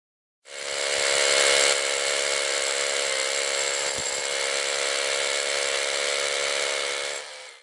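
Power drill boring a bolt hole into rock with a masonry bit, the motor running steadily with a held whine under the grinding of the bit. It starts about half a second in and stops just before the end.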